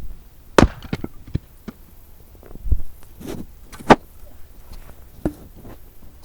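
Axe blows on a log being split for firewood: a string of sharp, irregular knocks and thuds, the loudest about half a second in and again near four seconds.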